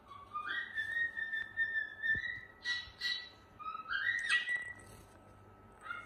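Cockatiel whistling: a long held note that steps up in pitch about half a second in and holds for a couple of seconds. A second rising whistle follows about four seconds in, with short harsh chirps in between.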